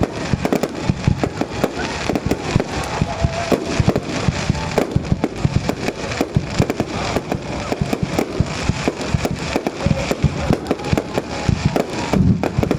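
Fireworks display: a rapid, uneven stream of bangs and crackling that keeps up throughout.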